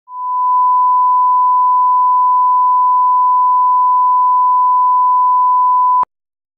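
A 1 kHz line-up reference tone of the kind played with broadcast colour bars to set audio levels: one steady, loud, pure beep. It cuts off suddenly about six seconds in with a brief click.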